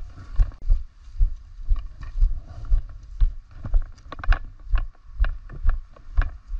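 Running footsteps of the camera wearer, thudding steadily about twice a second on grass and then on a paving-slab path. Light clicks and rattles come in between the footfalls.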